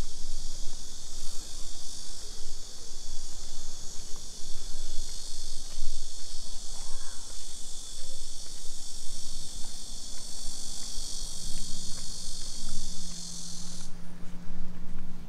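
A steady, dense high-pitched insect chorus that stops suddenly near the end.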